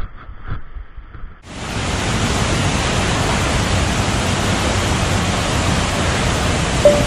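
Steady rush of a rocky jungle stream and its small waterfalls, starting abruptly about a second and a half in; before that, only a few faint clicks.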